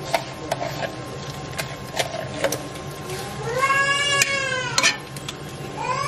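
A metal spoon clicks and scrapes against a tin and a ceramic pot as thick palm nut cream is scooped and spread. About halfway through comes a long, high cry that rises and falls in pitch, and another one starts near the end.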